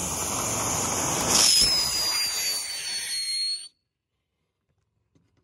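Black Cat 'Haulin Fast' truck firework burning, its rear fountain spewing sparks with a loud steady hiss. About a second and a half in, a high whistle joins, sliding slightly down in pitch. Both stop abruptly about three and a half seconds in.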